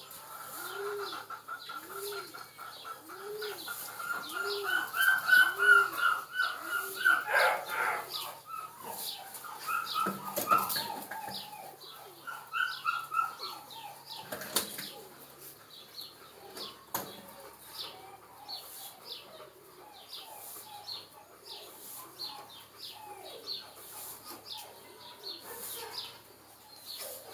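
Dogs whining and squeaking, with a long high whine through the first several seconds and many short high squeaks throughout.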